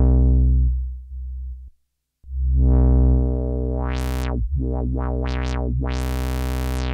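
Behringer Odyssey analog synthesizer holding a low bass note through its four-pole low-pass filter without resonance. The filter closes and the note dies away just before two seconds in. The note then returns, and the cutoff is swept open and shut several times: quick bright rising-and-falling sweeps.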